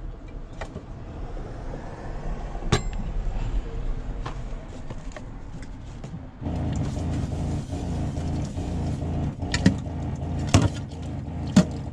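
A few sharp clinks of a plate and cutlery handled in a stainless steel sink. About six seconds in, the tap is opened: the motorhome's small electric water pump starts humming steadily with water running as a plate is rinsed, with more plate clinks near the end.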